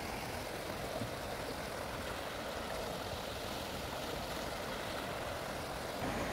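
Muddy floodwater of a flash-flooded stream rushing and churning in a steady roar of water noise, a little louder near the end.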